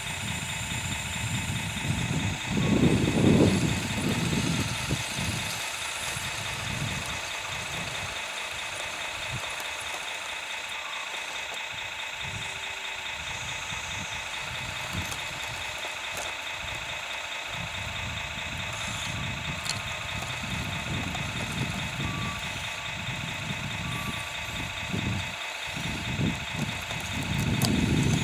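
Radio-controlled model tracked loader running: a steady mechanical whine throughout, with a louder low rumble about three seconds in and again near the end as it drives.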